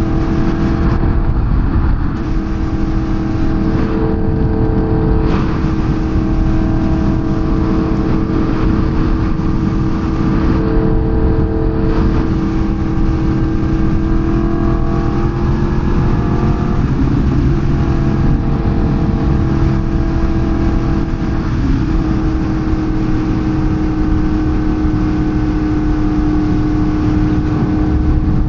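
Sportbike engine running at a steady cruising pace while riding. The engine note holds nearly constant, dipping and drifting slightly a few times, over steady wind noise.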